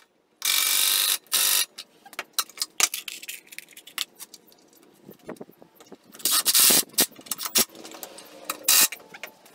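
A power drill driving pocket screws into pine boards in short bursts, two close together near the start, another about six seconds in and a brief one near the end, with clicks and knocks of the boards being handled in between.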